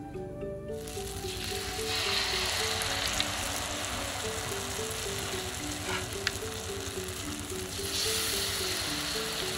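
Flour-batter spring onion crisps deep-frying in oil in an aluminium wok: a steady sizzle starts about a second in and swells louder again near the end as another piece of batter goes in. A few light clicks sound in between.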